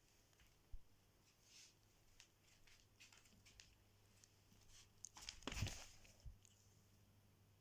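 Near silence: room tone with a faint steady hum, scattered soft rustles and clicks, and one brief louder rustle a little past halfway.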